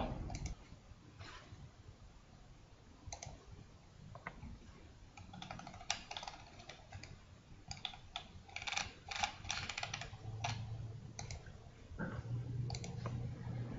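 Faint clicking of a computer keyboard and mouse: scattered single clicks, then a quicker run of keystrokes about eight to ten seconds in.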